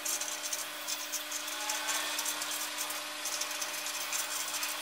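Ballpoint pen scratching across paper on a clipboard as words are handwritten in quick irregular strokes, over a steady low electrical hum.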